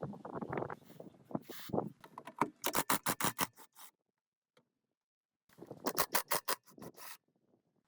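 Rapid runs of sharp clicks and light scraping, with about a second and a half of dead silence in the middle.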